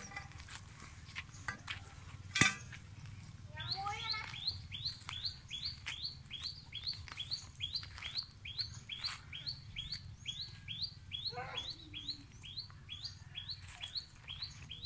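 An unseen bird repeats a short, high chirp about two to three times a second, steadily from about four seconds in. Twice, a falling call drops in pitch under it, and a single sharp click sounds about two and a half seconds in.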